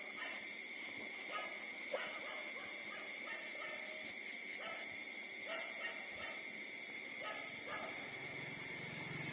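Newborn puppies giving short, high squeaks and whimpers while nursing, a call every second or so. A steady high-pitched hum runs behind them.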